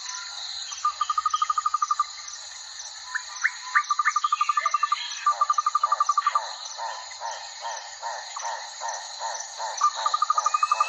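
Recorded nature ambience: insects chirping steadily in a high, even pulse, with repeated fast trills of one short note, each trill about a second long. From about five seconds in, a slower series of lower, falling calls joins in.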